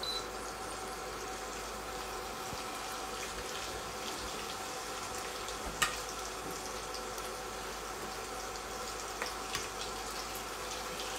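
Marinated chicken wings sizzling in hot oil in a pot, a steady sizzle with scattered small crackles and one sharper click about six seconds in.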